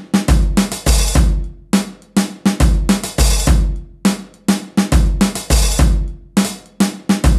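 Sampled acoustic drum kit from Maschine's Abbey Road 1950s kit, played from the controller's pads as a breakbeat of kick, snare, hi-hat and cymbal hits.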